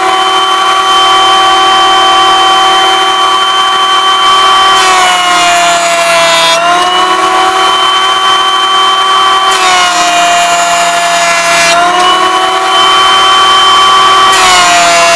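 Nu-Tool bench planer's motor running with a steady high whine. Three times the pitch sags under load and a loud rasping hiss comes in for a second or two as the cutter block planes a wooden block, the last pass near the end.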